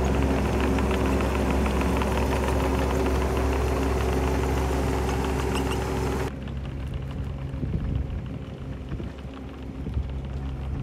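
Bobcat 319 mini excavator's diesel engine running steadily at close range. About six seconds in it drops suddenly to a quieter, more distant engine sound as the machine drives off.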